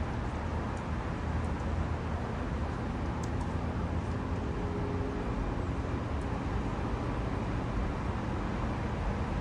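Steady low rumble and hiss of outdoor background noise, with a few faint, short high ticks scattered through it.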